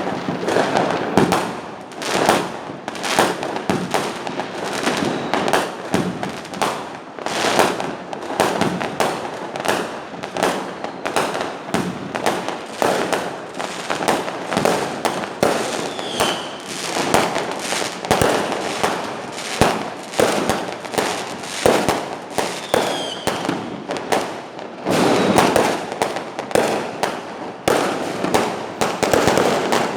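Fireworks going off in a dense, continuous barrage of bangs and crackles, with a couple of short whistles about halfway through.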